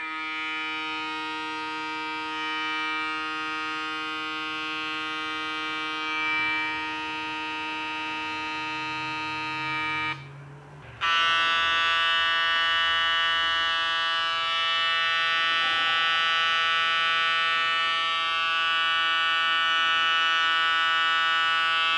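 Stylecraft Instinct cordless hair clipper running with a steady electric hum for about ten seconds, then switched off. After a second's pause, the Stylecraft Instinct trimmer is switched on and runs with its own steady hum.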